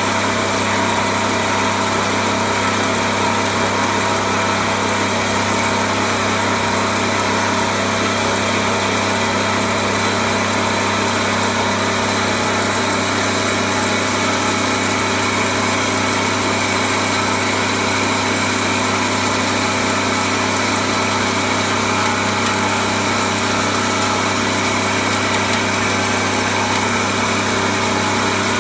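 Coffee grinding machine running steadily, a constant mechanical hum with a strong low tone and no change in speed or load.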